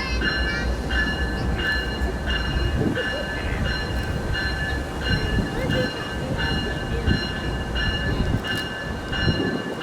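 Slow-moving Canadian Pacific freight train, with a low rumble under a bell that rings steadily about twice a second.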